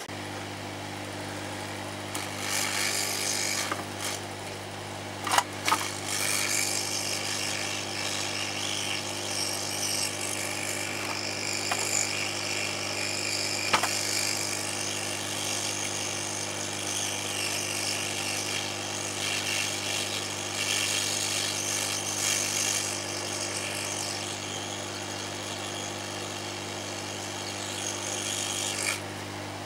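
Steady low hum under a hissy rasping noise, with a few sharp clicks, two about five seconds in and one around fourteen seconds, from hands at work soldering an electronics kit at the bench.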